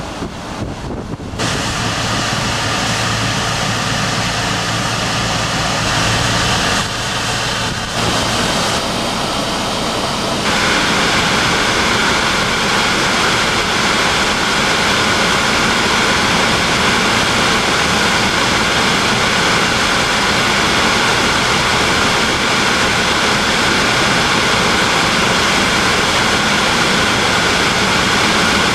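Steady road and wind noise from inside a moving car, a loud even rush. It changes abruptly about a second in and again around eight and ten seconds, and a faint high steady whine runs on top from about ten seconds in.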